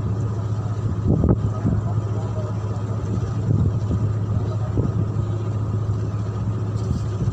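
Marine diesel engine running steadily, a low even hum with a few brief swells.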